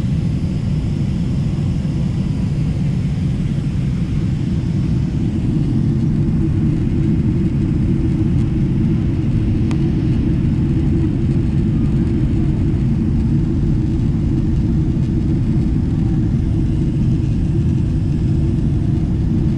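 Steady low rumble inside the cabin of a Boeing 777-300ER on approach: engine and airflow noise heard at a window seat over the wing.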